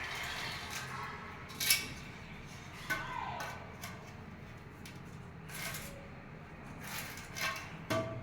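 A handful of short, sharp clinks and knocks of hard objects, scattered irregularly over several seconds, the loudest about two seconds in, over a low steady background hiss.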